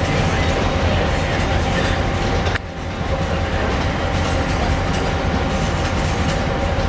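Diesel switcher locomotive running: a steady low engine rumble with a steady hum above it. The sound dips suddenly for a moment a little over two seconds in, then carries on.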